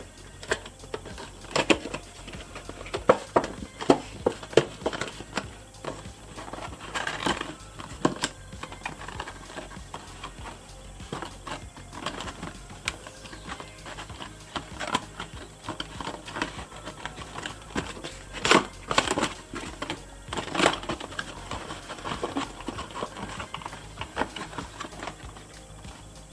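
Irregular clicks, taps and crinkles of a doll box and its plastic packaging being handled and opened, with clusters of louder clicks a couple of seconds in and again past the middle.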